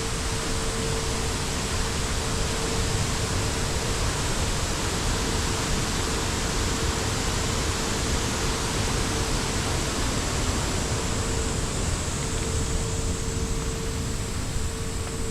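Steady rushing of flowing water, an even wash of noise, with a constant mid-pitched hum that fades in and out and a faint high whine.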